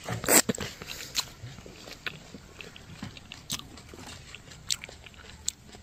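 A person biting into a ripe fruit and chewing it: one loud bite just after the start, then scattered soft chewing clicks.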